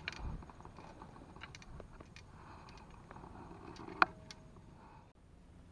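Faint handling noise from an angler holding a caught climbing perch and a fishing rod: scattered light clicks and rustles, a dull bump just after the start, and one sharp click about four seconds in with a brief ring after it.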